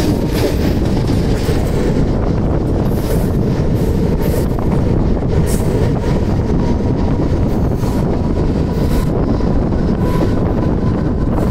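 Mumbai suburban electric local train running at speed, heard from its open doorway: a steady, loud rumble of wheels on the rails, with sharp clicks now and then as the wheels cross rail joints and a faint steady whine underneath.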